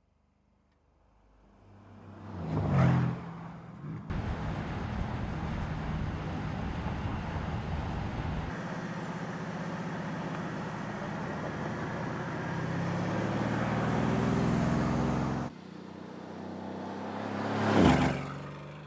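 Mercedes-AMG C63 S's 4.0-litre twin-turbo V8 at speed on a track. A car passes close, loudest about three seconds in; then a steady run with the engine note climbing as the car accelerates; then a second close pass-by near the end.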